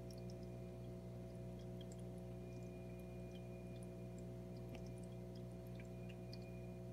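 Steady low hum with several held tones, the kind a nano reef aquarium's pump gives off while running, with faint scattered ticks over it.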